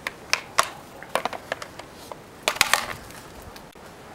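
Clicks and clacks of a SCAR-style airsoft rifle being picked up and handled, hard plastic and metal knocking together. The knocks come in small groups, with the loudest cluster a little past halfway.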